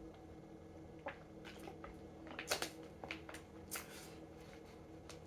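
Faint wet smacking and squishing mouth sounds of eating chicken wings, a scatter of short clicks, over a steady low electrical hum.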